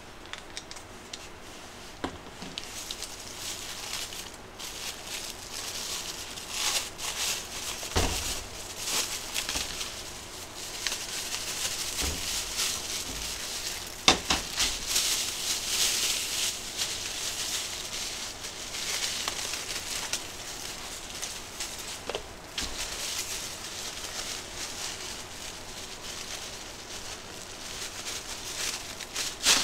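A plastic bag crinkling and rustling while raw marinated chicken is tipped into it and handled. Now and then a plastic jug knocks on the steel counter, the sharpest knock about halfway through.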